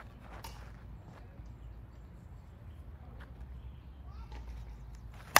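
A composite Worth Bedlam slowpitch softball bat striking a pitched softball once, a single sharp crack near the end, after several seconds of low steady background noise.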